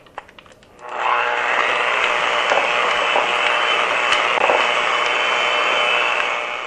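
Electric mixer running steadily, its beaters churning a batter of eggs, flour, sugars and vanilla; it starts about a second in and stops near the end.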